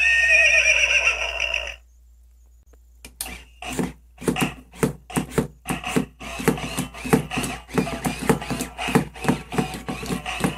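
A battery-powered toy horse plays a whinny for under two seconds. After a short pause its moving mechanism clicks in a steady rhythm, about three clicks a second.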